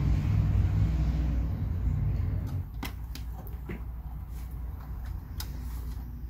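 A low rumble that fades out about two and a half seconds in, followed by a few light clicks and taps.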